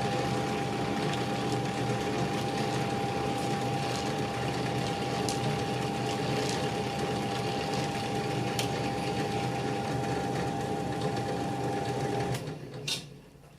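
1930 EXE metal lathe running on its electric motor, belt drive and gearing turning with a steady whir and a constant whine. It is switched off about twelve seconds in and the sound dies away, with a click or two after.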